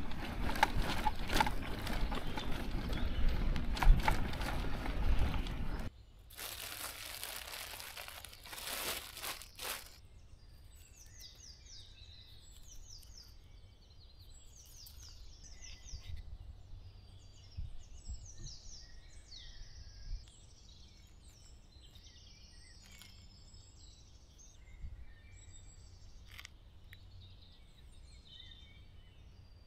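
Bicycle tyres on a sandy dirt track with the loaded bike rattling, cut off suddenly about six seconds in; then a few seconds of rustling, crinkling noise, and after that songbirds chirping in woodland, with a few light clicks and crunches.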